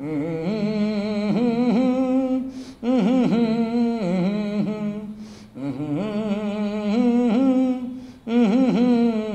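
A man humming with closed lips as a voice exercise: four long hummed phrases, each two to three seconds, the pitch stepping up and down between them with short breaths in between.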